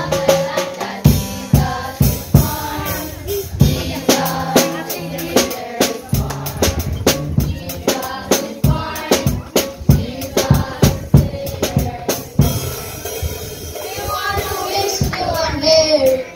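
Music: a drum kit keeps a steady beat, with bass drum and snare, under a sung melody.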